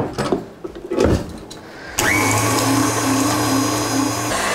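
Tilt-head stand mixer with a wire whisk: a few clanks as the head is lowered onto the steel bowl, then about two seconds in the motor starts with a brief rising whine and runs steadily, beating chilled crème pâtissière back to a smooth texture. Its sound changes slightly near the end.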